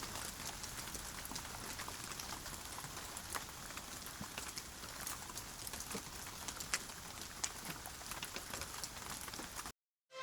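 Steady rain falling, with many small scattered drop ticks, that cuts off suddenly near the end.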